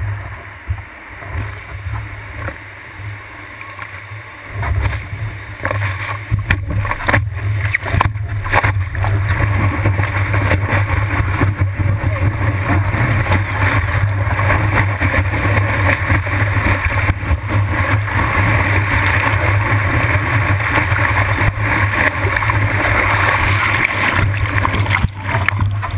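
Rushing whitewater and splashing around a surfboard riding a broken wave, heard from a camera on the board's nose, with a steady low rumble. It is choppier and quieter at first and grows loud about five seconds in, staying loud as the board rides the wave.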